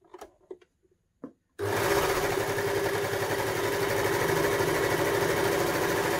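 Baby Lock Victory overlocker (serger) running steadily at speed, starting about a second and a half in and stopping at the very end, after a few faint handling clicks. It is gathering the fabric, with the differential feed set to 2 so the front feed dogs run twice as fast as the back ones.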